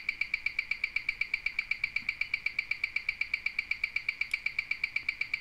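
Mechanical watch escapement ticking at 28,800 beats per hour, about eight even ticks a second, picked up by a timegrapher's microphone and played through its speaker. This is the Starking AM0184 movement being measured, with its amplitude around 219°, which the watchmaker calls a little low.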